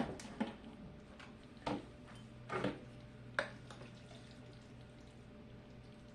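A few light clinks and knocks from handling things in the kitchen, about five in the first three and a half seconds, over a faint steady hum.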